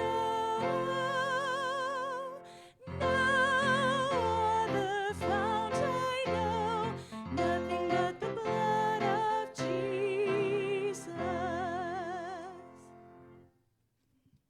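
Church hymn: a singer holding long notes with strong vibrato over instrumental accompaniment, a phrase at a time. The music ends a second before the end, leaving silence.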